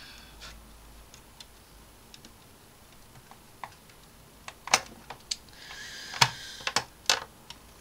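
Plastic hull parts of a 1/450 Hasegawa Akagi model kit clicking and tapping as they are pressed and fitted together by hand. A few faint clicks come first, then a cluster of louder, sharper ones about five to seven seconds in.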